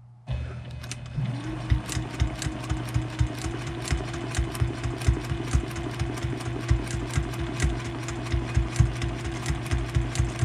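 Juki TL-2010Q domestic sewing machine doing ruler-work quilting through a ruler foot. The motor starts just after the beginning and speeds up over the first second into a steady run, with an even, rapid rhythm of needle strokes.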